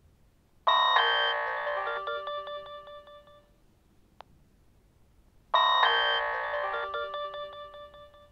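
Nokia 6600's built-in 'Message2' message alert tone, played twice about five seconds apart. Each time it is a loud burst of electronic notes followed by a quick run of short notes that fades out over about three seconds.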